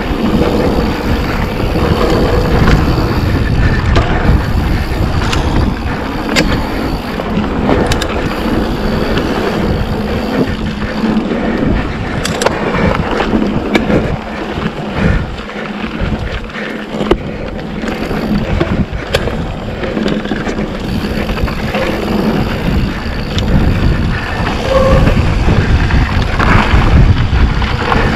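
Mountain bike rolling along a dirt singletrack: steady tyre rumble and wind noise on the microphone, with scattered clicks and rattles from the bike.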